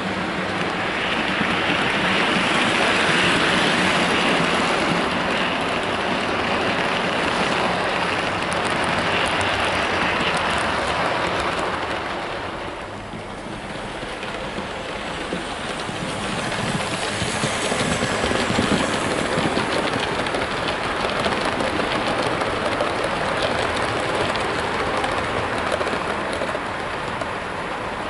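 Model trains running on the layout's track: a steady rumble and clatter of wheels on rail. It dips about thirteen seconds in, then builds again.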